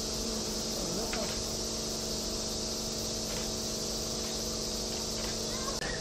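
Steady high-pitched drone of summer insects, with a low hum of several steady tones beneath it that cuts off just before the end.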